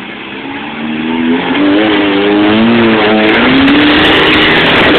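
Four-cylinder 4x4 engine revving hard under load, its pitch climbing and wavering, dipping and rising again. From about three seconds in, a loud rushing noise with crackles joins it.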